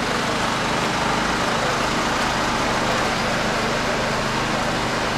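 Steady road-traffic noise with a low engine hum.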